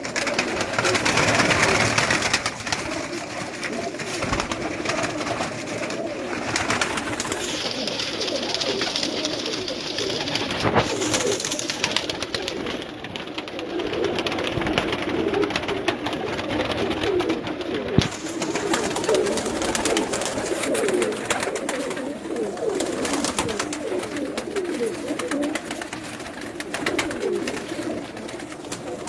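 Pigeons cooing continuously, many low coos overlapping.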